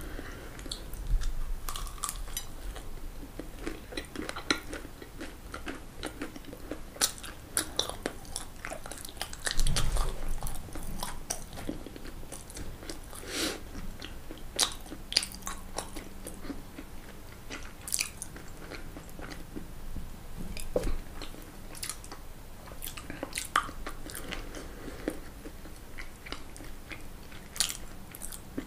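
Close-miked chewing and biting of crunchy fried food, with irregular crisp crackles spread throughout.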